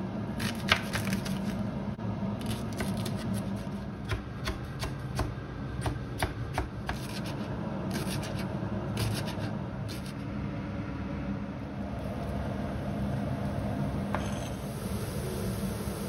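A chef's knife chopping a leek on a plastic cutting board: irregular knocks of the blade against the board for about the first ten seconds, over a steady low hum. Near the end a steady hiss comes in.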